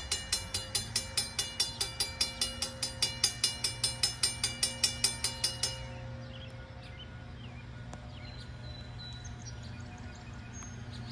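Railroad grade-crossing warning bell ringing rapidly, about four strikes a second, while the crossing gates lower; it stops about six seconds in, leaving a low steady hum.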